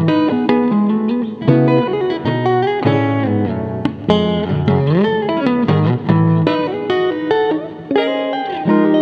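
Solo Stratocaster-style electric guitar playing an etude: a continuous flow of single notes and chords, with notes sliding up and down the neck now and then.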